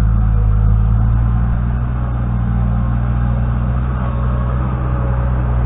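New Holland LX665 skid steer's diesel engine running steadily under load.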